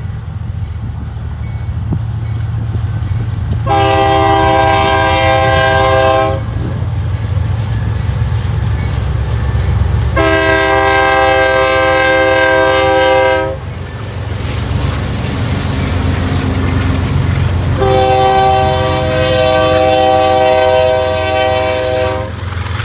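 Diesel freight locomotive's air horn sounding three long blasts of about three seconds each, over the steady low rumble of the passing locomotives' engines.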